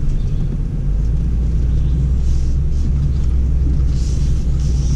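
Steady low rumble of a BMW X4 M40i driving along a dirt forest trail, heard inside the cabin: engine and tyre noise, with a couple of brief hissing swells about two seconds in and near the end.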